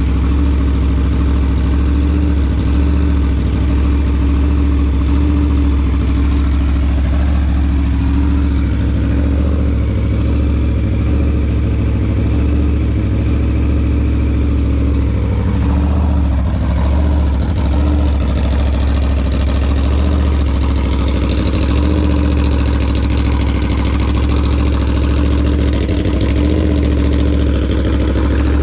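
Aprilia RSV4 1100 Factory's V4 engine idling steadily, at an even pitch without revs; a little more hiss joins in above it just past halfway.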